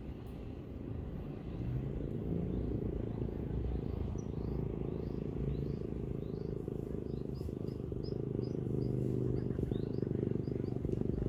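A small bird chirping repeatedly, several short rising chirps a second, starting a few seconds in, over a steady low rumble.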